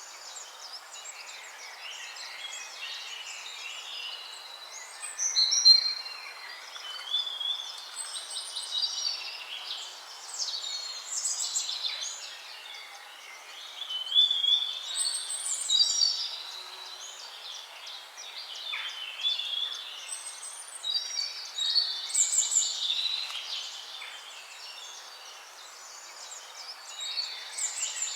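A chorus of several songbirds singing at once, overlapping chirps and song phrases, with louder bursts every second or two over a steady background hiss.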